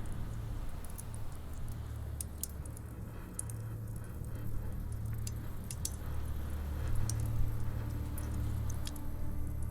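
Wood fire burning in a fireplace: scattered sharp crackles and pops over a low, steady rumble.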